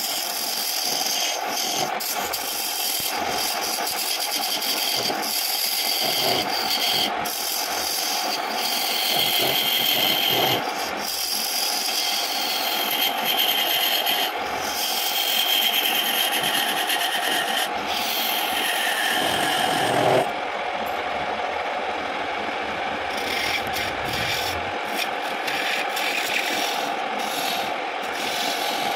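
Homemade wood lathe running steadily while a hand chisel cuts into the spinning wooden lid, a rasping scrape of steel on wood that swells and eases with each pass of the tool. The longest cut ends sharply about two-thirds of the way through.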